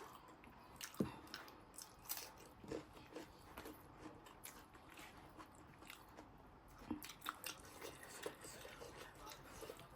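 A person eating pork up close, biting and chewing with soft, irregular crunches and wet mouth smacks; one sharper crunch about a second in.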